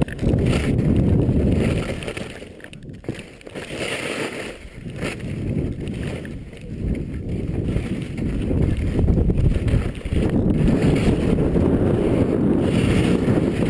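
Wind buffeting a helmet camera's microphone during a fast ski descent, a heavy low rumble, with skis hissing and scraping over the snow. The rumble eases for a couple of seconds about two seconds in, then builds again.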